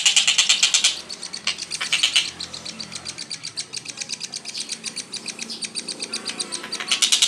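A songbird giving fast, tightly repeated high chirps in a rapid-fire string. They are loud for about the first second, softer through the middle, and loud again near the end.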